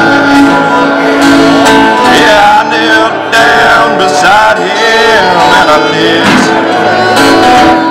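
Fiddle and acoustic guitar playing a tune together live: the fiddle carries the melody with sliding notes over the guitar's accompaniment.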